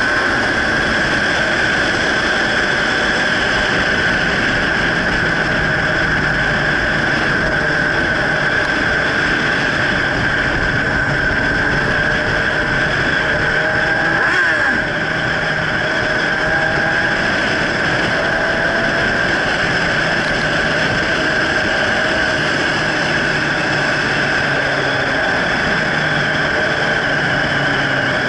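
Motorcycle engine running under way, its pitch rising and falling as the throttle changes, over steady wind noise on the microphone. The overall level dips slightly about halfway through.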